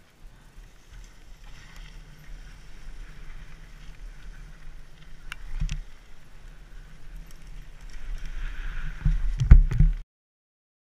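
Mountain bike riding over dry forest leaves, heard from a helmet-mounted camera: a steady rumble of tyres and wind noise, with a couple of sharp knocks about halfway through. A burst of loud knocks and rattles, the loudest sound here, comes near the end just before the sound cuts off.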